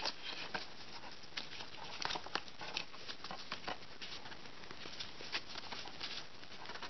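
Plastic packaging bags and a cardboard box rustling and crinkling under hands sorting small accessories, in scattered short crackles and taps that thin out in the last few seconds.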